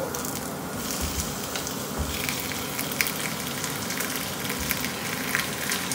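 Chunks of raw pork sizzling in hot oil in a pot as they are added with tongs, a steady frying hiss with a few sharp clicks.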